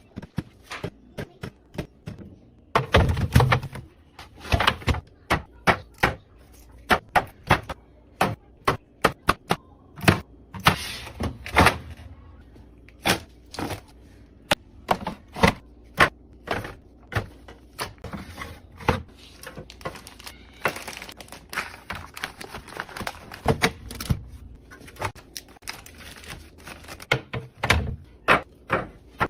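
Containers and food items handled during a fridge restock: an irregular run of many clicks, taps and knocks as things are set down and lids are handled, with a few heavier thuds.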